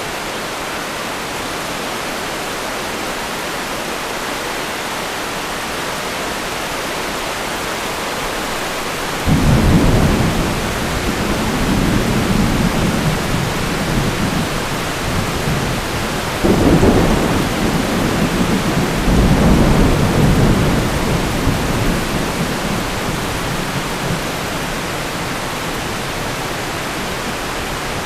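Thunderstorm sound effect: steady heavy rain hiss, with two rolls of thunder, one about a third of the way in and another a little past halfway, each rumbling for several seconds before fading back into the rain.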